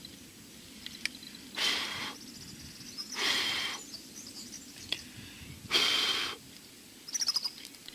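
A person blowing hard three times onto smouldering tinder, each breath about half a second long, to coax the embers lit by a punctured, smoking phone battery into flame.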